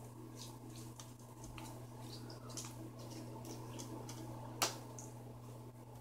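Green slime being stretched and squeezed by hand, making faint wet squelches and small clicks, with one sharper pop about four and a half seconds in.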